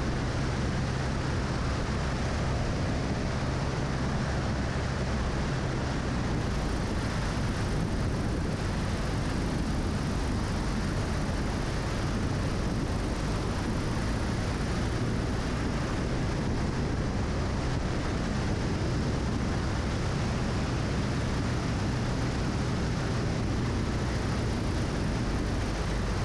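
Single-engine light aircraft's piston engine and propeller running steadily in flight, with a low hum under heavy rushing airflow over a camera mounted beneath the wing.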